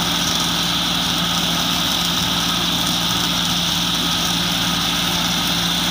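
Tractor engine running steadily under load while its rear-mounted grass mulcher spins and cuts grass, a constant drone with a high whir over it.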